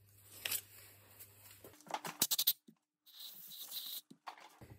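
Light clicks and scrapes from handling the cut-open plastic case of a Citroën XM ABS relay as its cover is lifted off, with a quick cluster of sharp clicks about two seconds in.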